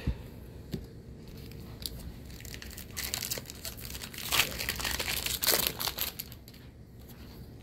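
Crinkling and rustling of a trading-card booster pack's plastic-foil wrapper being handled, in several bursts between about three and six seconds in.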